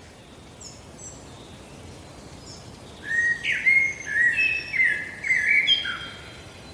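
Small birds chirping over a steady background hiss: a few faint high chirps at first, then a louder run of quick, repeated chirps from about three seconds in until about six seconds in.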